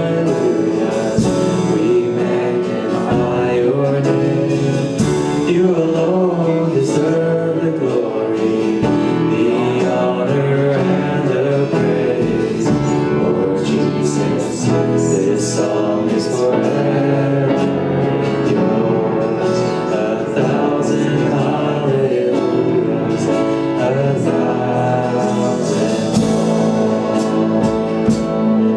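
Worship band playing a gospel worship song, with singing over guitar and other instruments.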